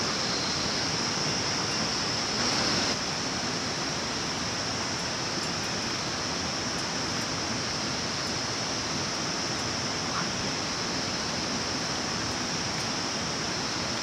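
Steady outdoor background hiss with a constant high-pitched drone running through it. There is a brief louder rush about two and a half seconds in.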